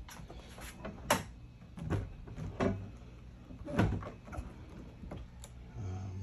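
BMW E24 M6 trunk lid being lowered and lifted again by hand on its hinges and torsion bars, giving a series of separate clicks and clunks, the sharpest about a second in. The lid is being tested after the torsion-bar fix, moving up and down freely.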